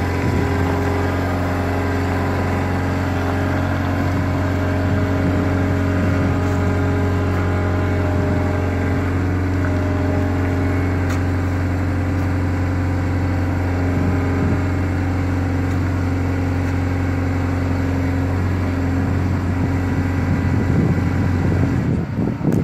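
Vehicle engine running steadily at a constant speed, a deep even hum with level tones that hardly change, swelling slightly near the end.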